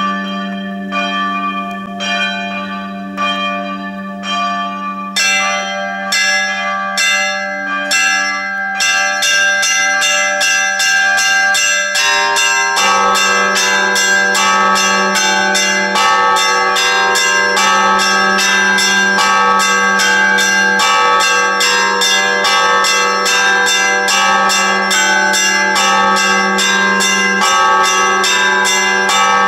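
Several church bells ringing: spaced strokes about once a second at first, then from about nine seconds in a quick, unbroken peal of many bells struck together, over the steady hum of a deep bell.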